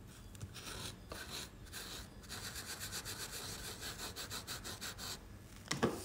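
Small cloth pad rubbed briskly back and forth over a metal nail-art stamping plate, a faint run of quick scrubbing strokes.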